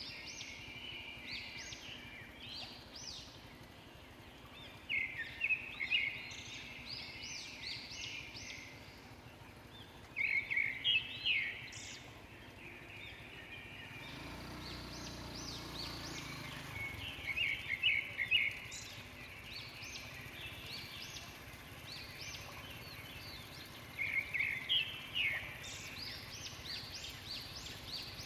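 Birds singing in short runs of quick, high notes that come back every few seconds, with a low rumble swelling for a few seconds about halfway through.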